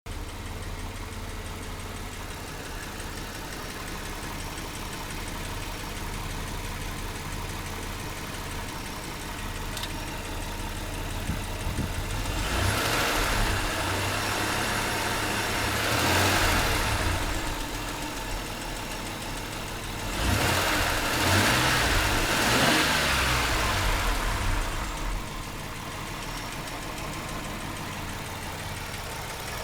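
Mitsubishi 6G72 V6 engine idling, revved up twice for a few seconds each, about twelve seconds in and again about twenty seconds in. A knock is heard that the owner cannot place.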